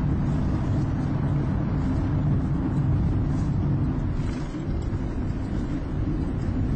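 Steady road and engine rumble of a car driving through road tunnels, heard from inside the cabin; the rumble drops a little for a moment in the open stretch between two tunnels.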